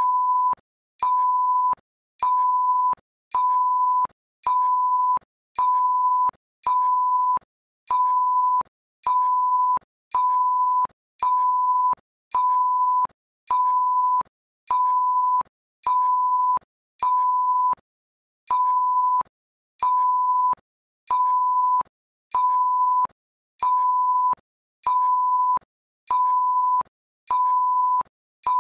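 Synthetic electronic beep tone at one steady pitch, pulsing on and off about once a second with each beep about half a second long. One beat is skipped a little past the middle.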